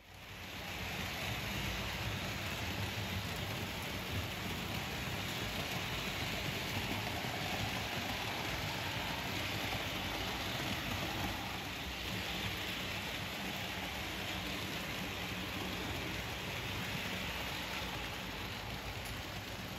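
Märklin model trains running on the layout's track: a steady rolling hiss and rumble of wheels on rail, starting about a second in.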